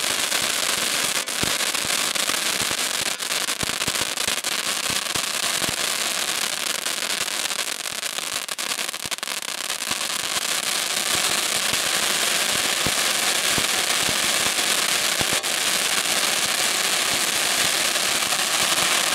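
Royal Hurricane cone ground fountain firework burning: a loud, steady hiss of spraying sparks with many sharp crackles throughout.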